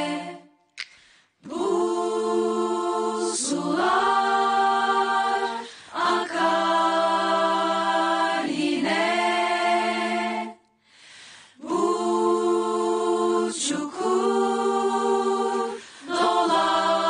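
A group of women singing together, without words the recogniser could catch, in long held notes: phrases of two to four seconds with short breaks about a second in and near the middle.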